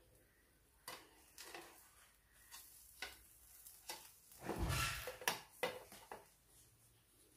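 Plastic spatula knocking and scraping against a nonstick frying pan while a folded bread omelette is nudged into place: scattered light clicks, with one heavier thump about four and a half seconds in.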